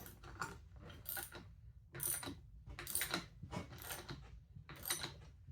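Steel tool parts clicking and scraping in short, irregular bursts as a bearing-extractor backing plate and nut are fitted on threaded rod, a puller for drawing a vintage Vespa engine's rubber mounting buffers into the cases.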